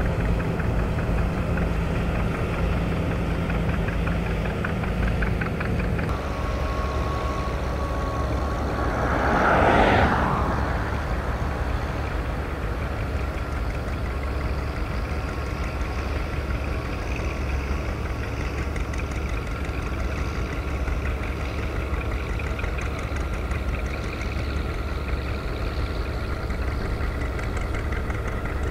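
Antique farm tractor engines running steadily under load while pulling plows through a field. About ten seconds in, a louder swell rises and falls as one passes close.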